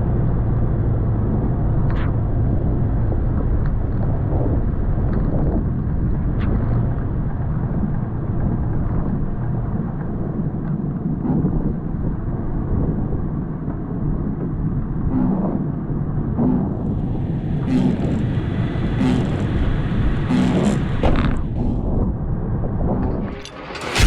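Toyota FJ Cruiser's 4.0-litre V6 and drivetrain running with a steady low rumble as it crawls over a rough, snowy trail, with scattered knocks and clunks from the body and suspension. The sound drops away just before the end.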